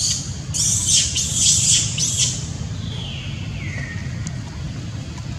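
Macaque screaming in several short shrill bursts over the first two seconds, then a single squeal that falls in pitch near the middle, over a steady low background rumble.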